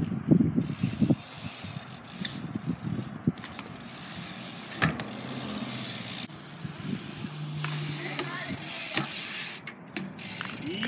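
BMX bike riding on concrete and asphalt: tyres rolling, with a cluster of knocks and clanks in the first second and single sharp impacts about five and nine seconds in as the bike lands and hits the ground.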